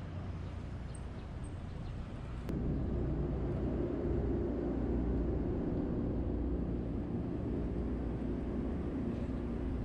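Street ambience: a steady low rumble of road traffic. It jumps louder with a faint click about two and a half seconds in, then holds.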